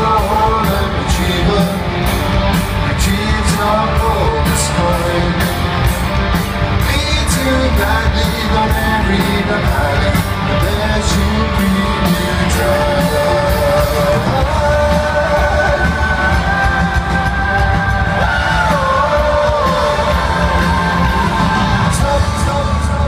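Live rock band playing (electric guitars, bass and drum kit) through a concert PA, with a steady drum beat and voices singing and yelling over the music, heard from within the crowd.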